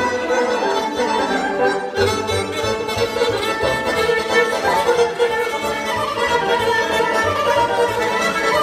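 Live Bulgarian Thracian folk music: a bowed folk fiddle playing the melody over electronic keyboard accompaniment with a steady, pulsing bass beat.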